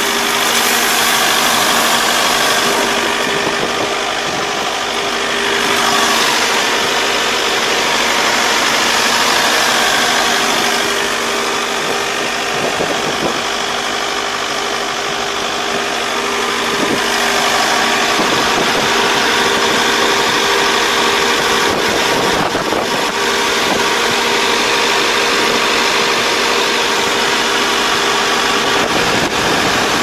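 Rice combine harvester running, its engine and machinery giving a loud, steady drone at a constant pitch.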